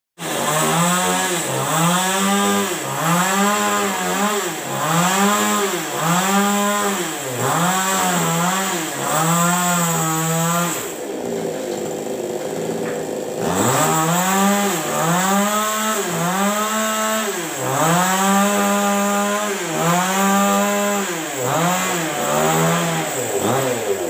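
Two-stroke chainsaw cutting a tree branch, its engine revving up and down about once a second. About halfway through it drops to a lower, steady idle for a couple of seconds, then the revving resumes.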